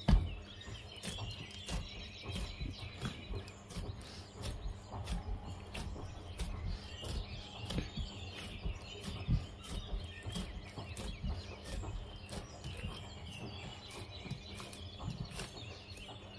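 Hands kneading whole-wheat dough in a metal bowl: irregular soft thuds and squishes as the dough is pressed and folded. Steady high chirping carries on in the background.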